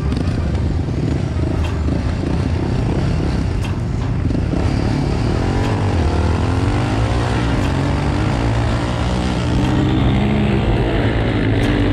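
Quad (ATV) engine heard from on board, running hard in a drag race. It revs at the start line, then launches and accelerates, its pitch rising and dropping through the gears.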